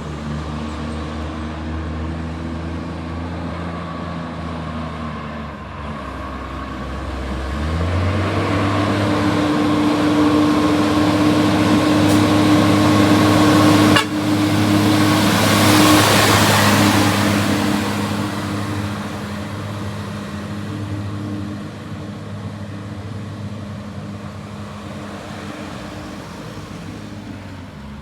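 Garbage truck engine with an exhaust leak, running steadily, then revving up about seven seconds in. It grows loud, with a strong rasp around the middle, then eases back down.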